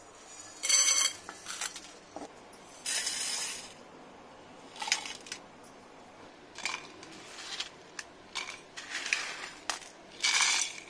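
Dry whole spices and dried red chillies rattling against steel as they are tipped onto a steel plate and into a steel mixer jar: a string of short rattles and clinks with a metallic ring, the loudest about a second in and near the end.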